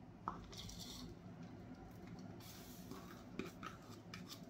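Faint rustle of chopped chilies sliding from a bowl into a wooden mortar, with a few light taps of the bowl and fingers scraping out the last pieces.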